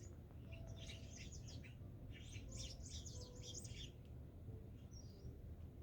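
A flock of small birds chirping in quick overlapping bursts, thickest about a second in and again from about two to four seconds, with a steady low rumble underneath.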